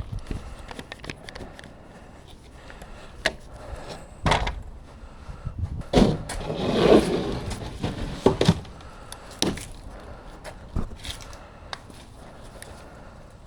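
Lumber being handled and set down: several separate wooden knocks, with a longer scraping rustle about two-thirds of the way through.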